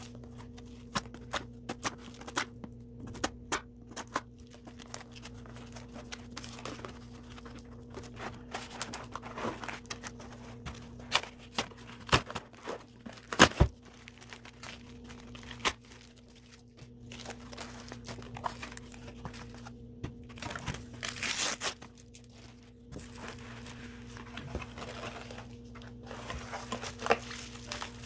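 A cardboard book mailer is cut and torn open by hand, making a run of sharp cracks, scrapes and tearing of stiff cardboard and paper. The loudest crack comes about halfway through. Rustling follows in the last third as the bubble-wrapped book is handled, all over a faint steady hum.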